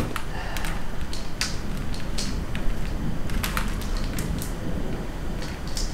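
Scattered light clicks and crackles of small hard objects being handled, irregularly spaced, over a low steady rumble.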